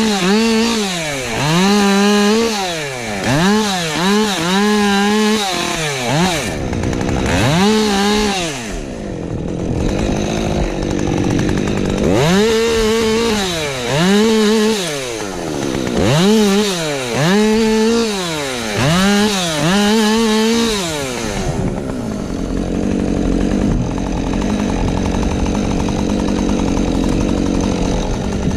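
Husqvarna 550XP Mark II two-stroke chainsaw revved up and down in quick repeated bursts, about one a second, as in cutting. Near the end it settles into a steadier, lower-pitched run.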